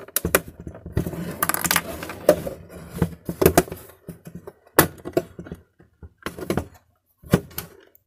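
Snap-fit plastic trim strip on a dehumidifier's casing being pushed and flexed by hand to release its hidden clips: irregular plastic clicks, creaks and short scrapes.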